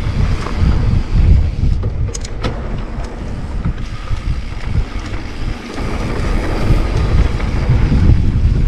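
Heavy wind rumble on the camera microphone while riding an e-mountain bike down a trail, with a few sharp clicks about two seconds in.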